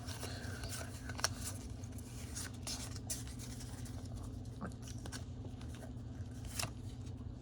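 Pokémon trading cards and a foil booster pack being handled, with faint scratching and scattered light clicks over a steady low hum.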